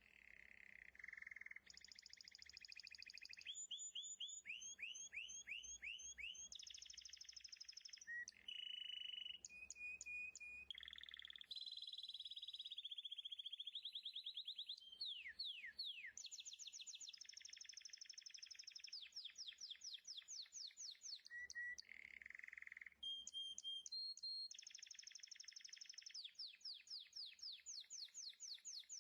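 A string of high, bird-like calls: runs of quick chirps that each sweep downward, held whistled notes and trills. The pattern changes abruptly every second or two.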